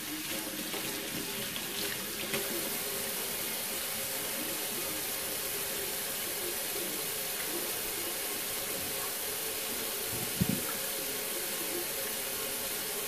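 Kitchen faucet running steadily into a stainless steel sink, the stream splashing on the basin bottom. A single brief thump about ten seconds in.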